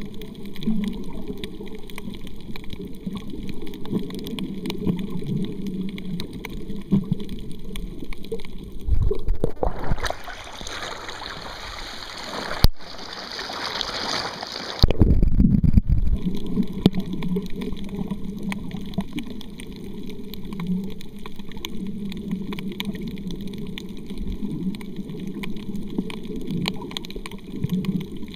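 Underwater sound from a snorkeler's waterproof camera: a muffled low rumble of water moving around the housing. About nine seconds in, the camera breaks the surface and the sound opens into splashing, sloshing water for several seconds. It goes back under with a low thump around fifteen seconds, and the muffled rumble returns.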